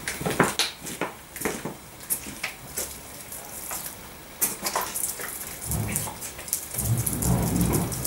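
Pressure washer mostly off: scattered drips, taps and clicks of water falling on hard ground. Near the end the pressure washer's motor and pump run in two short stretches.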